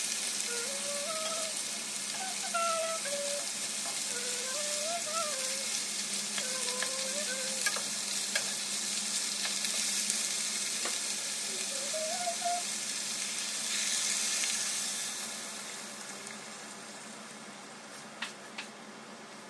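Monkfish pieces in curry paste sizzling in a hot nonstick pan while being stirred with a wooden spatula. The sizzle dies down about three-quarters of the way in, once coconut milk is poured in, and a few light clicks follow.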